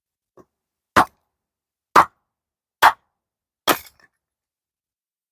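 Axe splitting seasoned oak firewood: four sharp wooden cracks about a second apart, with a faint knock just before them.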